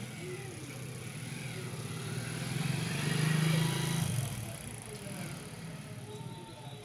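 A motor vehicle passing, its engine hum building to a peak about three seconds in and then fading.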